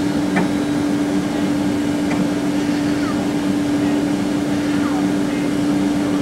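Boeing 767 cabin noise on the take-off roll: jet engines running with an even rushing noise and a steady low hum.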